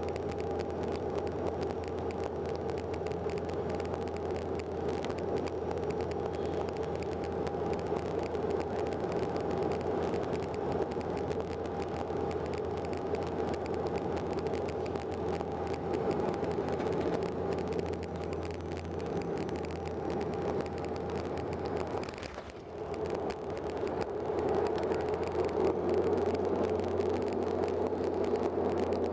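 Cabin drone of a Bombardier Dash 8-Q400's Pratt & Whitney PW150A turboprops and propellers on final approach: a steady hum with a held high tone. About three quarters of the way through it dips briefly and the tone drops away. It then grows louder with the aircraft on the runway.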